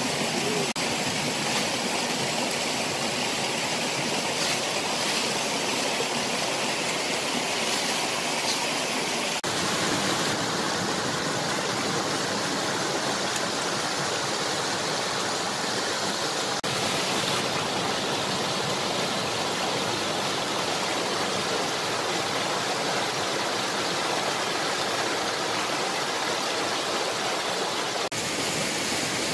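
Steady rushing-water noise, like a stream flowing, with no clear single events. Its tone shifts abruptly three times, once roughly a third of the way in, again past halfway, and once near the end.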